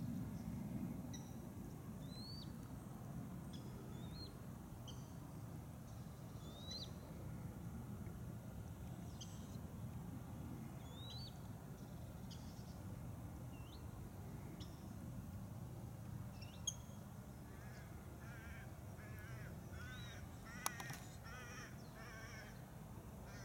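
Water rail chick peeping: short, high, rising peeps repeated every second or two, over a faint low rumble. Later, another bird gives a run of harsh, repeated calls, and there are two sharp clicks.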